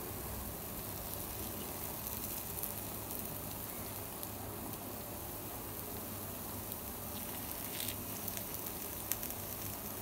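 Jackfruit paniyaram frying in ghee in a paniyaram pan: a steady, soft sizzle, nearly done on both sides, with a few light clicks near the end.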